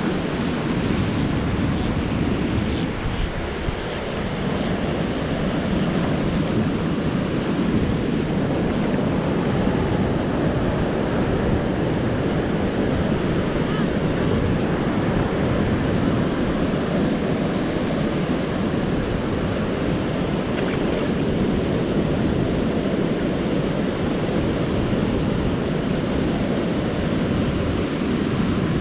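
Ocean surf breaking and washing in without a break, with wind rumbling on the microphone.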